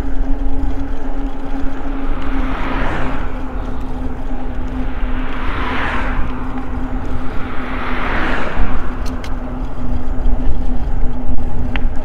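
Three cars pass one after another on the road alongside, each a swelling and fading rush of tyre noise. Under them runs the steady wind rumble and hum of an e-bike riding at speed.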